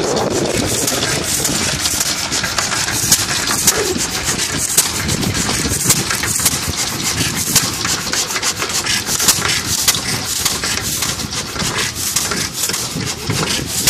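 Single-cylinder hopper-cooled gas engine of an antique Jacobson friction-drive tractor running, with a dense, irregular clatter of clicks and knocks.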